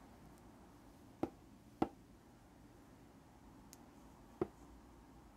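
Three short light clicks from a chrome mascara tube being handled and stood upright, the second a little louder, the last near the end, over quiet room tone.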